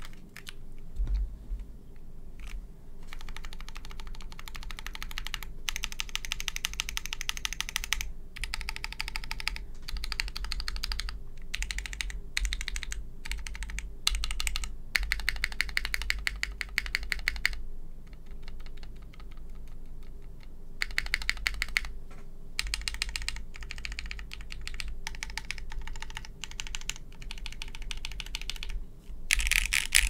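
Typing on a mechanical keyboard: an aluminium O-ring-mounted KBDfans Anode with lubed KTT Wine Red linear switches and GMK Darling keycaps. A few scattered clicks and knocks in the first few seconds, then bursts of fast key presses broken by short pauses.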